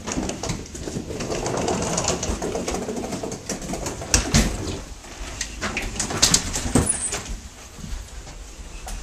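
Wheeled suitcases rolling across a wooden deck and in through a doorway, with footsteps. A heavy thump about four seconds in as a suitcase goes over the threshold, and several more knocks a couple of seconds later.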